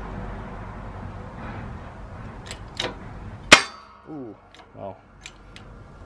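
Steel press parts clinking on a motorcycle wheel hub set in a shop press, with one loud ringing metal clang about three and a half seconds in, followed by short scrapes and a few light clicks.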